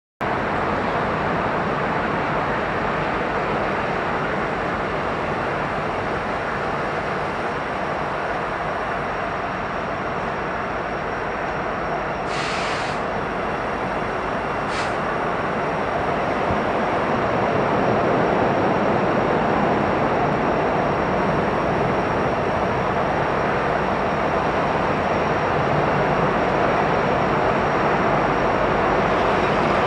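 Freight train rolling along the rails, a steady rumble that grows slightly louder in the second half. Two short hisses sound over it, about twelve and fifteen seconds in.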